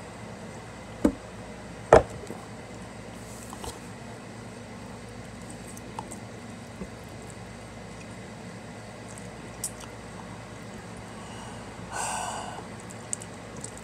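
Someone eating noodles from a plastic container. Two sharp knocks come about one and two seconds in, then quiet eating with a few faint clicks, and a short loud breath through the mouth about twelve seconds in.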